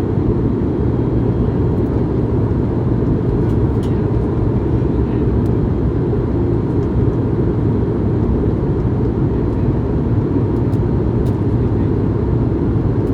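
Steady in-cabin noise of an Airbus A220-100 in its climb: a deep, even rumble from the Pratt & Whitney PW1500G geared turbofans and the airflow, with a few faint ticks from the cabin.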